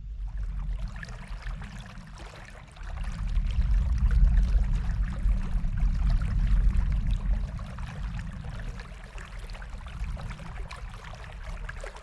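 Running water, a dense splashing rush over a deep rumble, starting suddenly and growing louder about three seconds in before easing off.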